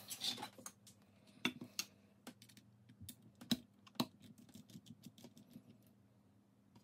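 Irregular small clicks and taps of hard parts being handled at a workbench, the loudest about a second and a half in and again around three and a half and four seconds in, over a faint steady low hum.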